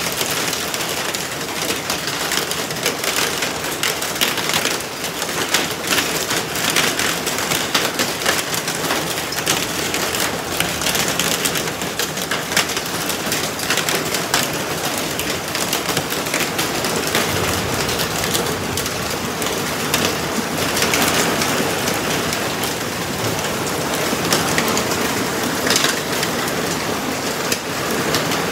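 Hail and heavy rain pelting down together, a dense steady clatter of countless small hailstone impacts over the hiss of the rain.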